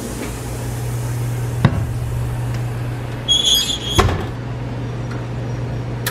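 An oven's door is handled and shut: a knock about a second and a half in, a short high metallic scrape, then a thud as the door closes about four seconds in. A steady low hum runs underneath.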